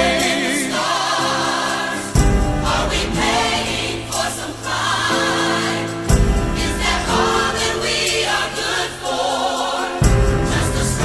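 Pop ballad music with singing over the band, and a deep low hit landing about every four seconds.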